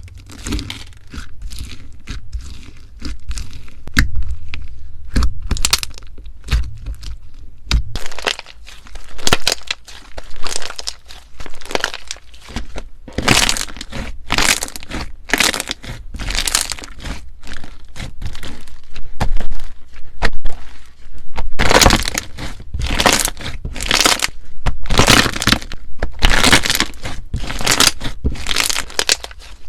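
Slime being squeezed and pressed by hand, giving a run of irregular crackles and pops that grow louder and thicker about halfway through.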